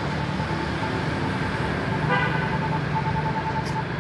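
Road traffic noise: a steady engine rumble with a thin steady tone running through it, and a short toot, like a vehicle horn, about two seconds in.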